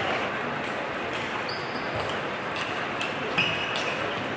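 Table tennis ball struck back and forth in a rally, several short, sharp pings off the bats and table over a steady background hiss.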